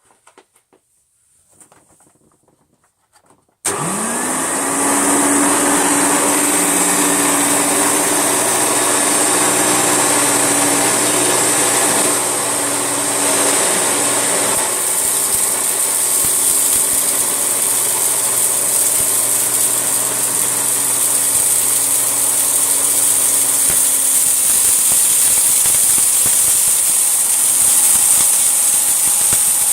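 Hoover Turbolite upright vacuum cleaner switched on about four seconds in, its motor whining up to speed and then running steadily as it cleans up a mess of smashed cereal and dog hair. A few faint handling sounds come before it starts.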